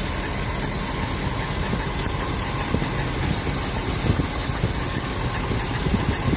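Engine idling with the serpentine drive belt squealing steadily, a high thin squeak over the engine. The squeal comes from the belt slipping on its pulleys, which the owner puts down to a cheaper belt that hardened in cold weather.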